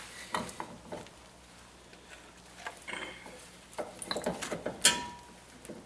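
Metal tools and parts clinking and clattering as they are handled during front wheel hub work, with a run of small clinks near the end and one sharp metallic clank that rings briefly.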